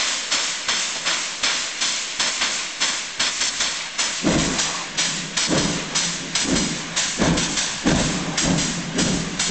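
PKP Pt47 steam locomotive pulling away, its exhaust chuffing in an even rhythm of about three beats a second. The beats grow deeper and heavier about four seconds in as it draws nearer.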